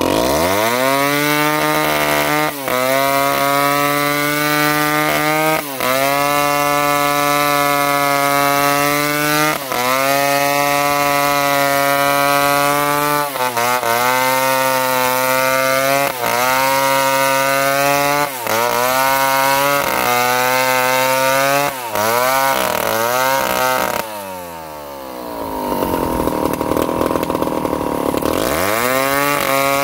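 Stihl two-stroke chainsaw revving up and held at high revs while cutting a felled tree trunk, its pitch dipping briefly and recovering every few seconds. About three-quarters through it blips up and down a few times, drops to idle for about four seconds, then revs up again near the end.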